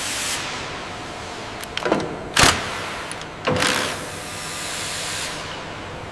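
Assembly-line noise: a steady hiss with three sharp knocks, about two, two and a half and three and a half seconds in, the middle one the loudest.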